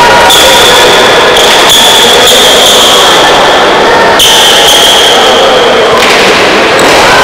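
Pelota ball striking the frontón wall and floor several times, each hit sharp and echoing in the hall, over a constant loud hiss from an overloaded recording.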